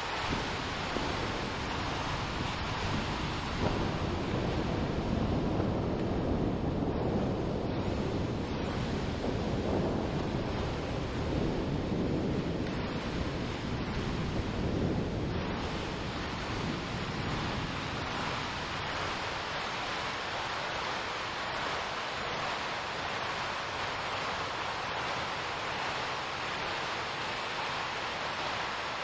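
Steady rushing noise, a processed recording of wind and rain, that sounds like surf. From about 4 to 15 seconds it turns deeper and duller before brightening again.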